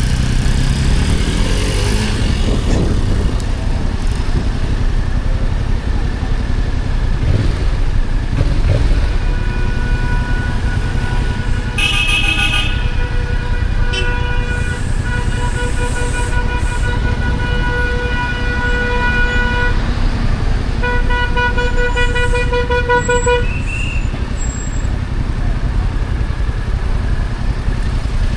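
Yamaha XSR700's stock parallel-twin engine running with a steady low rumble while riding in traffic. A vehicle horn honks briefly about twelve seconds in, then blares in two long held blasts.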